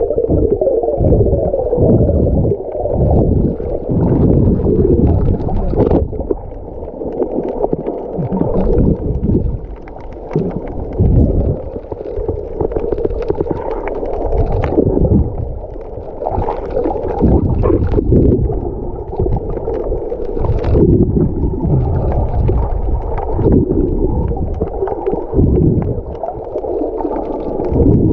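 Muffled underwater sound of water sloshing and gurgling against a camera held below the surface, coming in irregular surges.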